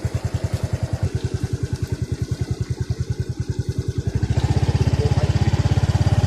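A small engine running with an even low chugging of about twelve beats a second, picking up speed and getting louder about four seconds in.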